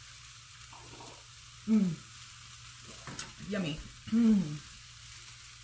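Chopped onions, bell peppers and garlic sizzling in a seasoned copper frying pan, a steady frying hiss. A woman's short vocal sounds, including "yummy", come over it a few times, louder than the sizzle.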